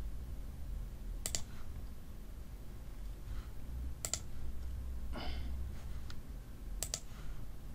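Three sharp computer mouse clicks, about three seconds apart, over a low steady hum.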